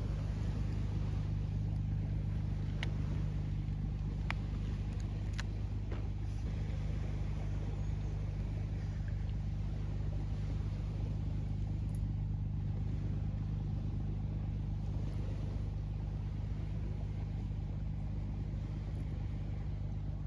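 Steady low motor rumble with a constant hum, even in level throughout, with a few faint clicks over it.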